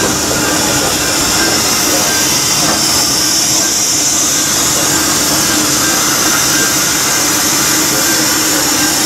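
Steady hiss of steam from a narrow-gauge steam locomotive standing in steam on a turntable while it is turned.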